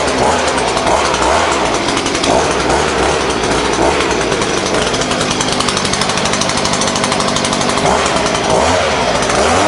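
Gas-engine pressure washer running loud and steady, its engine hum under a dense rushing hiss.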